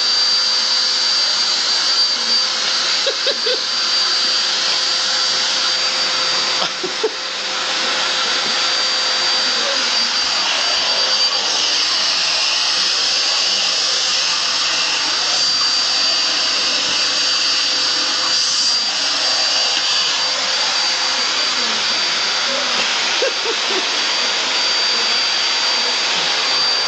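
Canister vacuum cleaner running steadily, a high whine over the rush of air, with a brief dip about seven seconds in.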